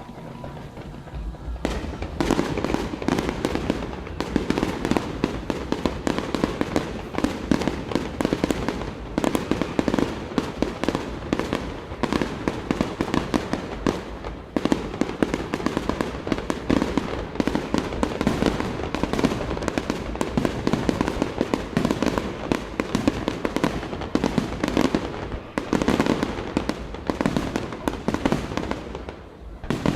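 Fireworks display: a dense, continuous barrage of rapid bangs and crackles starts about two seconds in and keeps going without a break.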